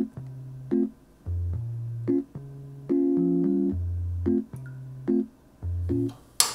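Light background music: electric piano chords over short low bass notes in a bouncing rhythm, with one sharp click near the end.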